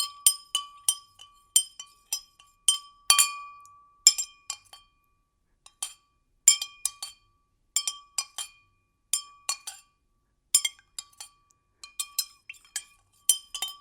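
A spoon stirring in a glass, clinking against the glass wall over and over, each clink leaving a short ringing tone. The clinks come in irregular runs, the loudest with the longest ring about three seconds in, and there is a brief pause about five seconds in.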